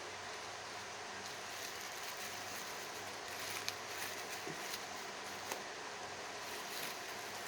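Hands unwrapping bubble wrap from a small stone, giving a few faint crinkles and clicks over a steady background hiss and low hum.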